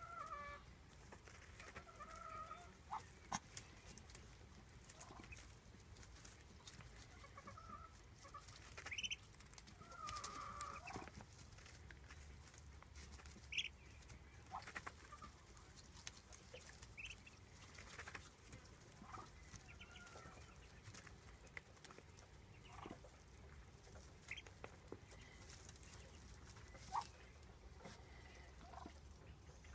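Faint, scattered soft calls from Muscovy ducklings as they feed, with an occasional sharp tick from bills pecking in a metal feed bowl.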